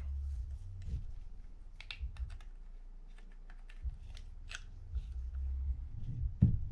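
Scattered small clicks and taps of a Daiwa BG30 spinning reel's rotor and body being handled and fitted together, with a louder knock near the end.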